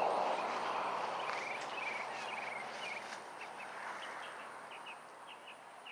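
Roadside ambience: a broad traffic hiss that fades away over the first few seconds, with short, high chirps and trills repeating above it, a couple of times a second.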